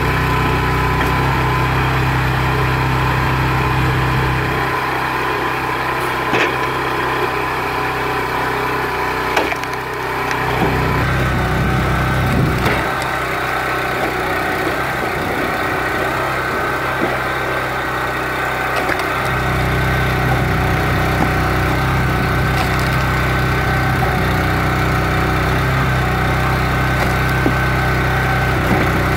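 Small gasoline engine driving a hydraulic log splitter runs steadily. Its low hum drops away and comes back twice as the ram cycles through its strokes. Several sharp cracks of wood splitting come now and then.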